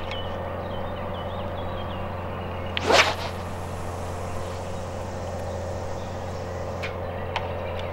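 Carp fishing rod swishing through the air in one quick, rising whoosh about three seconds in as it casts out a ball of groundbait. A steady low hum runs underneath.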